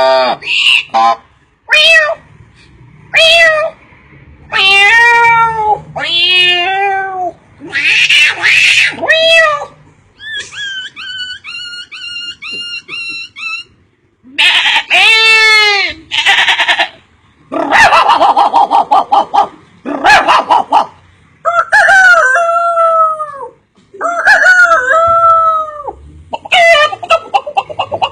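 A man imitating animal calls with his voice: a series of separate loud calls, many sliding down in pitch, like crowing and howling, with a fast trill of repeated short notes near the middle.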